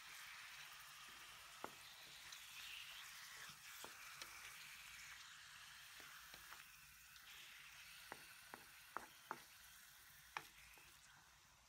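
Faint sizzling of raw pork pieces and onion frying in oil in a wok, stirred with a wooden spatula. The sizzle slowly fades, and the spatula knocks sharply against the wok a few times, most of them in the second half.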